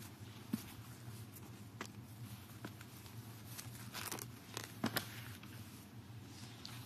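Quiet large-room tone with a low steady hum, broken by scattered small rustles and clicks, a few louder ones about four to five seconds in.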